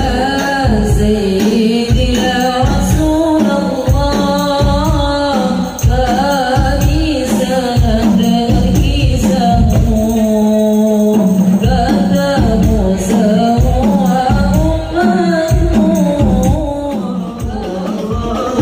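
Sholawat singing over the steady beat of hadroh frame drums (rebana), amplified through a PA sound system.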